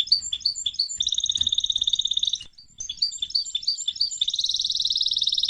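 A bird singing: quick high chirps, about four a second, alternating with long rapid trills, one starting about a second in and another near the end.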